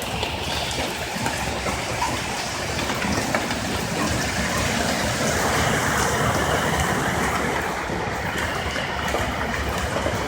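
A vehicle driving through floodwater on a street: a steady rush of splashing water and tyre noise that swells a little midway.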